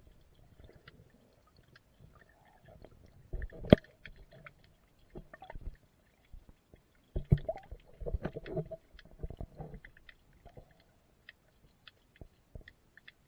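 Muffled underwater water movement and knocks picked up by a camera held underwater in a swimming pool, with faint scattered clicks throughout. There are two louder spells of thumps and sloshing, a short one about three and a half seconds in and a longer one from about seven to ten seconds in.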